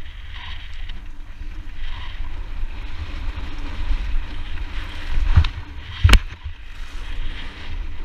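Wind buffeting a helmet camera's microphone over the rumble of mountain-bike tyres rolling down rock and dirt. About five and a half seconds in there is a thump, then a sharp, loud impact about six seconds in as the bike lands a jump.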